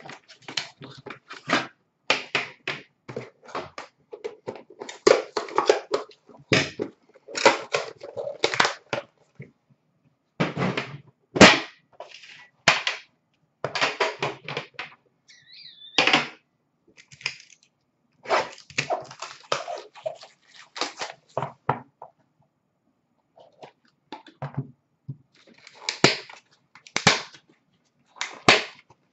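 Hands opening a hockey card box and its inner tin: a run of short taps, clicks and scrapes of cardboard and metal, with a brief squeak about halfway through.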